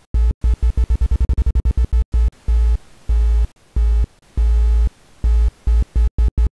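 Software synthesizer driven by body movement through a Kinect sensor: a buzzy low synth tone chopped into rapid stuttering pulses at the start and end, with a few longer held notes in between. The rhythm changes as the dancer's arm and body movements are read.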